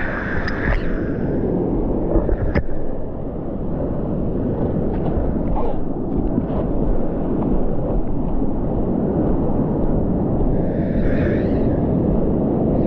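Wind buffeting an action camera's microphone over the steady wash of breaking surf running up a sand beach, a constant low-heavy noise with no break.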